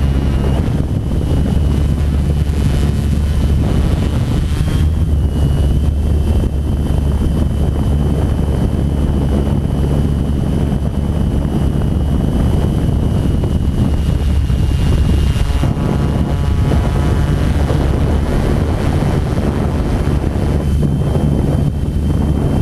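Multicopter drone's electric motors and propellers running as it lifts off and climbs, heard through its on-board camera: a loud steady hum with a thin high whine whose pitch shifts slightly a few times, and wind rushing over the microphone.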